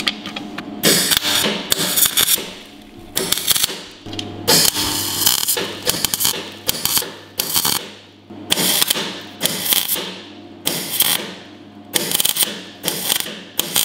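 Wire-feed (MIG) welder laying short welds on a steel exhaust pipe: a crackling sizzle that starts and stops about a dozen times, each burst half a second to a second long, over a steady low hum.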